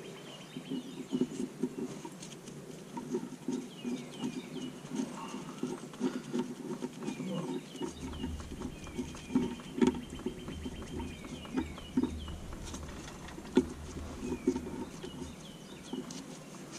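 Soft irregular clicks and rubbing of gloved hands working a banjo bolt and copper washers into a brake caliper, with a few sharper metal knocks. Small birds chirp repeatedly in the background.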